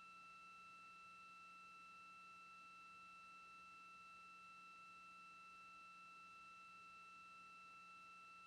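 Near silence with a faint, steady electronic tone and its higher overtones, a constant hum on the broadcast audio line.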